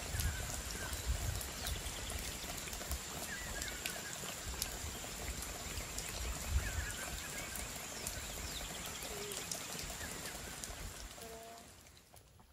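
Outdoor forest ambience: a steady hiss with a few short bird chirps and a faint steady high-pitched whine. It cuts off abruptly just before the end.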